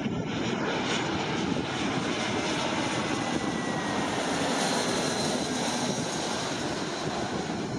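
Airbus A321 twin-engine jet airliner on final approach with its landing gear down, passing low overhead: a steady jet rumble and rush, with a faint whine that falls in pitch a few seconds in as it goes by.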